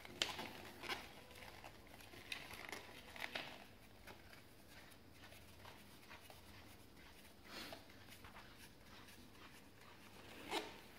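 Faint handling noise of carbon-fibre tripod poles being screwed together by hand: scattered soft clicks and brief rubbing of the tube sections and threads, with quiet stretches between.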